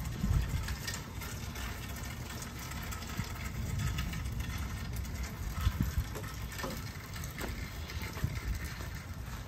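Hail mixed with rain coming down on a yard and against a wall: a steady hiss of falling water broken by many small, irregular ticks of hailstones striking, over a low rumble.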